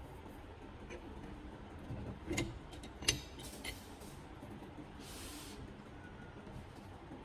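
Workshop handling sounds: a few sharp clicks and knocks, the loudest about three seconds in, and a short hiss around five seconds, over a low steady hum.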